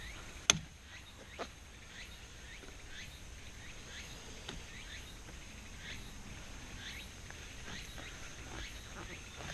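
A sharp click from the plastic clamp of a roof-rack kayak carrier being handled, about half a second in, and a softer click a second later. Under them runs a steady high insect drone and repeated short rising chirps.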